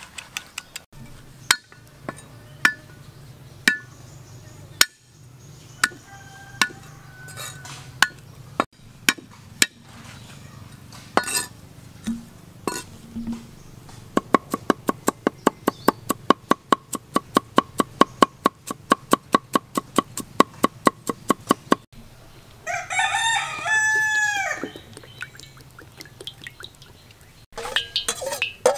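A cleaver chopping garlic on a wooden cutting board: scattered single knocks of the blade at first, then for about eight seconds a fast, even run of strokes, about five a second. Then a rooster crows once.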